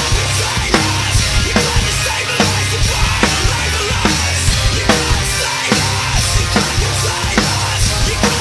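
Acoustic drum kit played hard on a driving rock beat, with kick drum, snare and cymbal crashes, over the song's recorded backing track.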